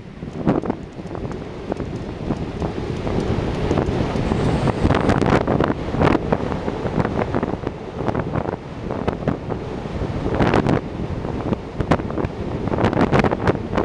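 Wind buffeting the microphone of a camera moving at speed, a loud, gusting rumble that swells and drops.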